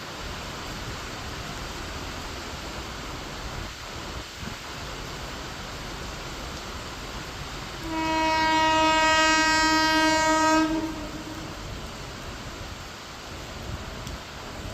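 Train horn sounding one long, steady blast about eight seconds in, lasting nearly three seconds, over a continuous rushing noise of the running train and rain.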